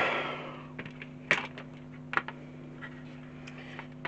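Light plastic clicks and taps as the plastic body shell of a Tamiya Grasshopper RC buggy is handled and fitted onto its chassis: a rustle fading over the first second, then a few scattered sharp clicks, over a steady low hum.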